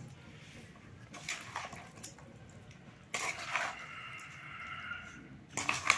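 A spoon tossing and stirring a thick, oily lapsi (hog plum) pickle in a metal basin: wet squelching scrapes in three separate strokes, about a second in, around three seconds in and near the end.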